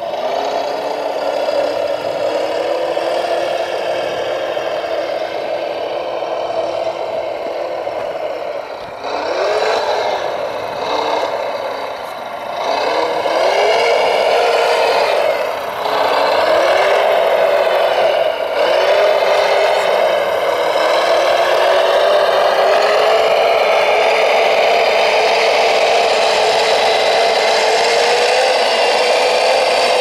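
Radio-controlled model construction vehicles running: a steady motor or engine sound whose pitch revs up and down several times around the middle, then climbs slowly near the end.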